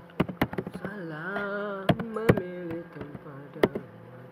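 Computer keyboard keys clicking in quick, irregular keystrokes as code is typed. Over the middle two seconds or so, a person's voice sings a few drawn-out, wavering notes.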